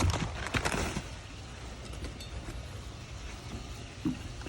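Loose parts of a wall-mount toilet carrier being handled, with a quick run of clicks and rustles in the first second. Then a steady low background rumble and one soft knock a little after four seconds in.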